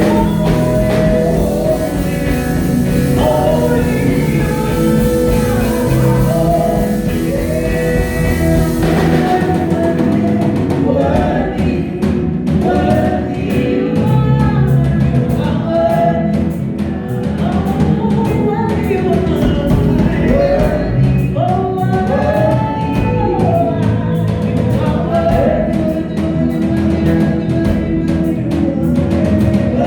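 Live gospel worship music: voices singing together over sustained keyboard-like chords and drums. A bright high wash drops out about nine seconds in.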